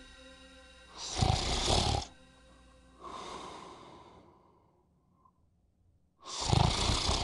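A man snoring loudly: a loud snore about a second in, a weaker one that fades out a little later, then another loud snore near the end.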